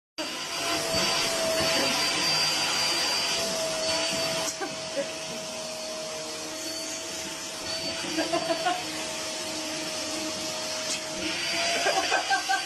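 A small electric motor running steadily with a rushing air noise and a fixed whine. A few short pulses of another sound come over it about two-thirds of the way through and again near the end.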